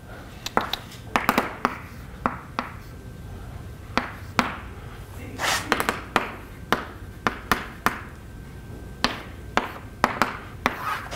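Chalk writing on a blackboard: irregular sharp taps as the chalk strikes the board, with short scratchy strokes between them.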